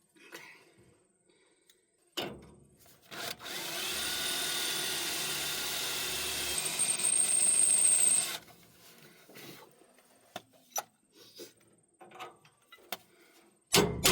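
A handheld power tool runs steadily for about five seconds, its sound shifting to a higher whine for the last two seconds before it stops. Scattered clicks and knocks of metal parts being handled follow, and loud regular strikes begin right at the end.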